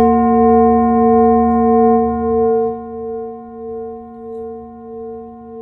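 Large brass singing bowl struck once with a wooden striker, ringing on in a low hum with several overtones. Its loudness drops a little under three seconds in, and the ring then pulses slowly, about one and a half swells a second.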